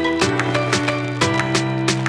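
Background music: held notes over a steady beat of about four strokes a second.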